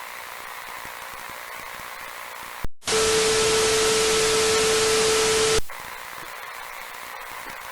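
Low steady hiss, broken about three seconds in by a sharp click and a loud burst of TV-style static carrying a steady mid-pitched tone. The burst lasts about three seconds and cuts off suddenly, and the hiss returns.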